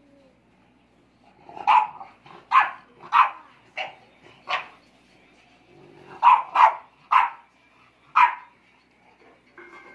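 English bulldog barking: short barks in two runs, five over about three seconds, then a short pause and four more.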